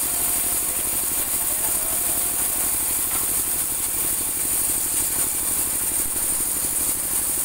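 Engine-driven band sawmill cutting a large teak log. The engine runs at a steady, fast, even chug, with a steady high hiss on top.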